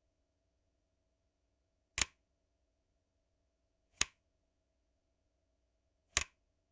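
A switch being flipped, giving three sharp clicks about two seconds apart.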